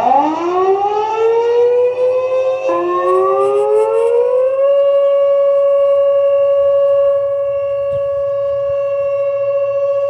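Thunderbolt 1000 and Whelen 2810 sirens sounding the Alert signal, a steady tone. They wind up in pitch over about the first five seconds, then hold one steady note.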